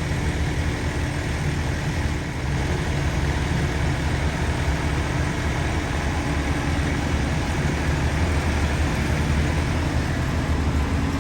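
Heavy diesel machinery engine running steadily, an even low rumble with no change in speed.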